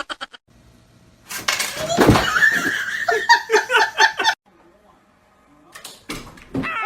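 People laughing and talking.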